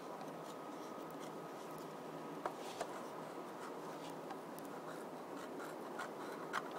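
Faint scratching with a few light clicks from a stainless steel Coghlan's 702 G.I. can opener, rocked forward and back as its blade cuts through the lid of a tin can.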